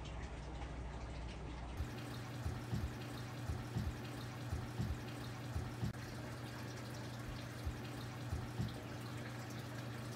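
A steady low electrical hum with scattered faint clicks and taps at irregular intervals.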